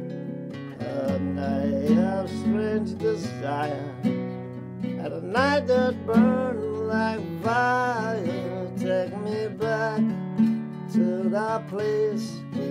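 Acoustic guitar strummed in a slow song, with a wordless vocal melody wavering over the chords.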